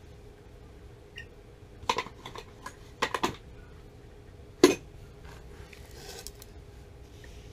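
Metal tools and parts clinking and knocking as hands work at a gas water heater's control valve: a sharp knock about two seconds in, a quick cluster of clinks around three seconds, and the loudest knock just before five seconds, over a faint steady hum.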